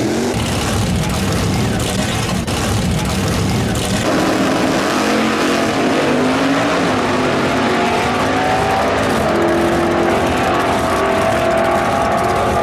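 Two nitrous drag-racing street cars running hard at the starting line, then launching about four seconds in, their engines at full throttle and climbing in pitch as they pull away down the strip.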